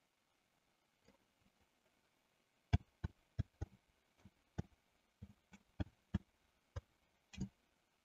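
Computer keyboard typing: about a dozen separate key clicks at an uneven pace, starting about three seconds in, after a few faint taps.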